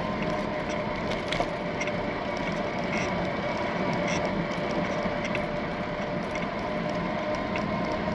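Bicycle in motion: steady rolling and wind noise with a faint steady whine and scattered small clicks and rattles from the bike.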